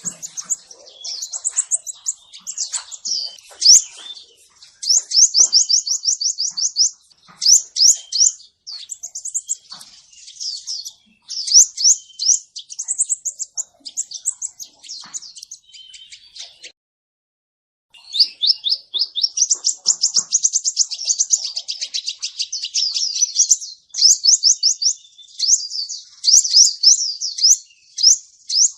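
Male crimson sunbird ('kolibri ninja') singing: long runs of rapid, thin, high chirps and trills in quick bursts. The song cuts out completely for about a second about two-thirds of the way through, then resumes.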